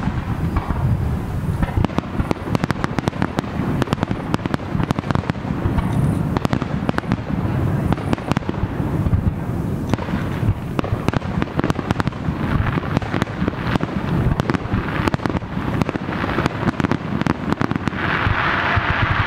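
Aerial fireworks: shells bursting in rapid, almost continuous succession with dense crackling, turning to a steadier hiss near the end.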